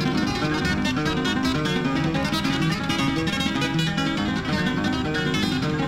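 Background music: fast plucked acoustic guitar in a flamenco style.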